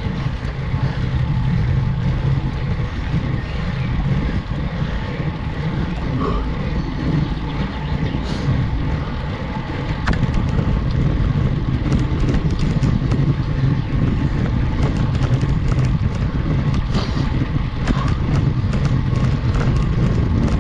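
Steady wind and road noise on a bike-mounted action camera's microphone as a road bike climbs, getting a little louder about halfway, with scattered short clicks in the second half.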